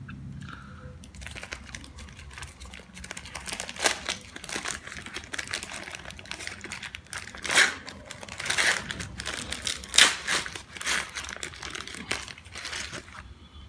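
White paper wrapping crinkled and pulled open by hand to unwrap a grilled sandwich bread, an irregular crackling rustle with the loudest crackles in the second half.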